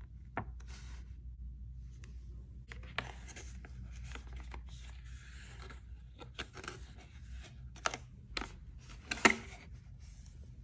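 Packaging of a USB-C cable being handled and opened by hand: repeated rustling and scraping with light clicks, and a sharp tap about nine seconds in.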